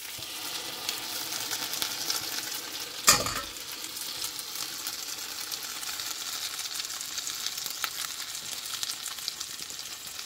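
Egg-soaked brioche slices frying in butter in a cast iron skillet: a steady crackling sizzle that starts suddenly. One loud clank about three seconds in.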